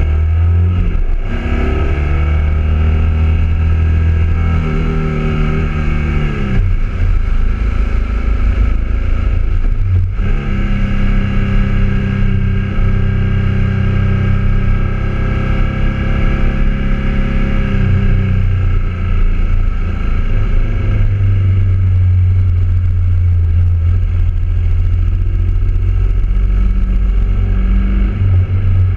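BMW motorcycle engine running on the road, heard on board the bike. The engine note falls about six seconds in and again around eighteen seconds in, holding steady between.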